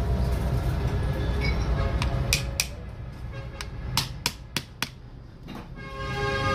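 Sharp metallic clicks of pliers and small parts against a tractor alternator's housing as it is assembled, two about two seconds in and four more in quick succession around the four-second mark, over a steady low rumble.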